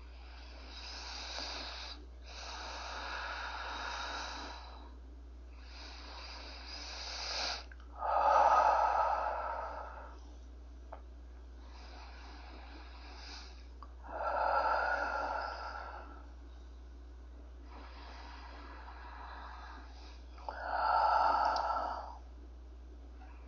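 A woman breathing slowly and deeply close to the microphone: long, airy breaths in and out, with a louder, harsher breath about every six seconds. It is the channeler breathing herself into trance before she channels, with a steady low hum under it.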